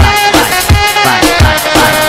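Instrumental passage of a Brazilian funk dance track with no vocals: a repeating beat of deep bass kicks that slide down in pitch, about three a second, under steady synth tones.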